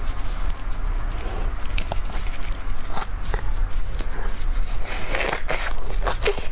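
Close-miked eating sounds: chewing and wet mouth clicks, with a bite into a rolled Peking duck pancake wrap about five seconds in, over a steady low hum.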